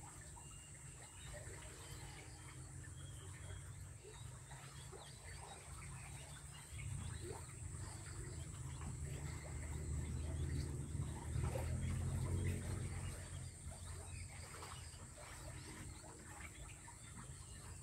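Steady low hum of a quail incubator, swelling for several seconds in the middle, with faint scattered peeps and scratches from newly hatched king quail chicks.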